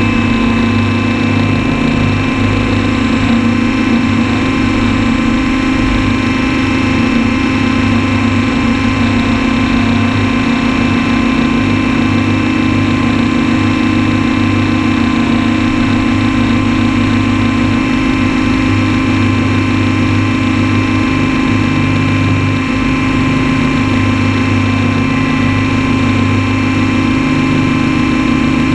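Radio-controlled copter's motors and rotors, heard from its onboard camera: a loud, steady drone with a low hum that swells and fades every few seconds as it flies low and hovers.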